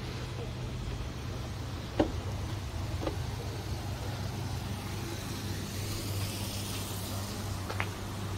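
Steady low mechanical hum, like an idling engine, with a few sharp footsteps on steel chequer-plate stairs, the loudest about two seconds in.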